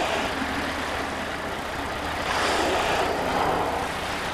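Steady rush of wind and water over a boat motor's low hum, growing a little louder about two seconds in.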